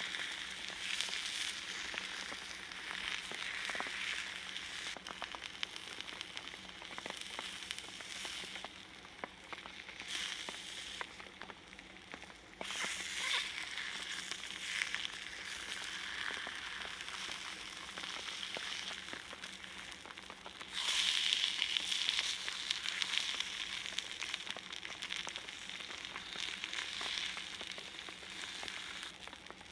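Salted mackerel sizzling on a hot iron griddle, with many small pops. The sizzle grows louder about two-thirds of the way through.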